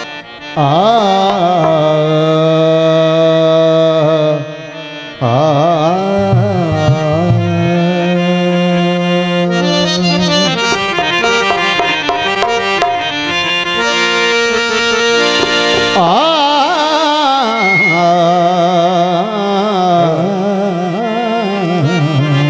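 A man singing a Punjabi devotional qasida into a microphone, long wavering held notes, over a reed-instrument accompaniment that sounds like a harmonium, with hand drums. The music pauses briefly about four and a half seconds in.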